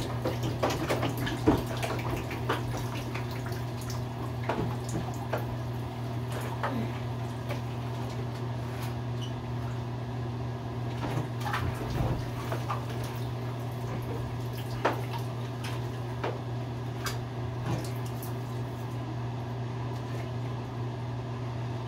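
Bath water splashing and dripping as water is poured from plastic bath toys, with plastic toys knocking now and then over a steady low hum. The sound echoes in a small tiled bathroom.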